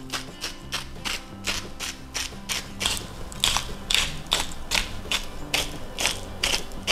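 Hand-twisted pepper mill grinding peppercorns: a quick run of rasping, ratchet-like crunches, about three a second, louder in the second half.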